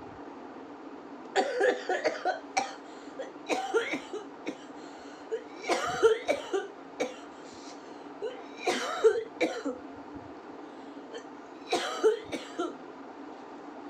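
A woman coughing in about five separate fits, each a quick run of several harsh coughs, with short pauses between them.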